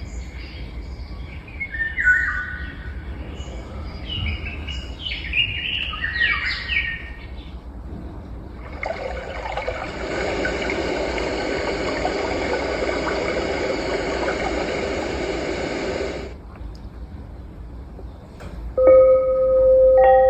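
Birds chirping for several seconds, then a steady rushing noise for about seven seconds that cuts off, then a bell struck about a second before the end, its tones ringing on.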